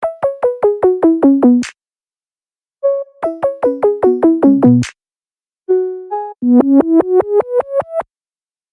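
Electronic keyboard music: three quick phrases of short, sharply struck notes, each phrase falling in pitch, with short gaps between them. The first two phrases end with a brief sharp hit.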